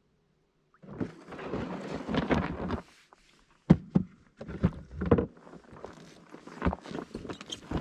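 Sounds from a canoe: after a moment of silence, a couple of seconds of swishing, then a string of sharp knocks against the hull, the loudest about three and a half seconds in.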